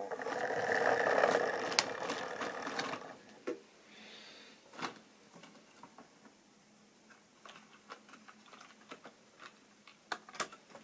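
The electric motor of a Class 20 model diesel locomotive whirs as it runs along the track for about three seconds, then stops. After that come scattered light clicks and knocks as the model is handled and coupled to the wagons, with a few sharper clicks near the end.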